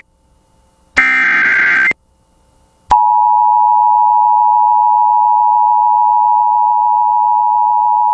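Emergency Alert System broadcast: a one-second burst of the screechy digital SAME header data about a second in, then after a short gap the two-tone EAS attention signal (853 and 960 Hz) starts and holds steady.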